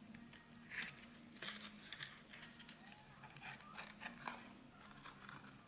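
Faint rustling and crinkling of card stock and paper as a handmade layered star card is handled, lifted and its folded panels are opened out. These are short, irregular rustles over a faint low hum.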